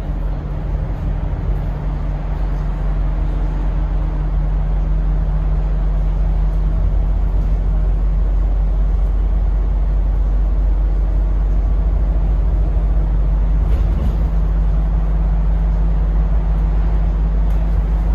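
Inside the upper deck of a Volvo B5LH Wright Eclipse Gemini 2 diesel-electric hybrid double-decker bus, the drivetrain gives a steady low rumble and hum. It grows louder over the first few seconds, then holds steady.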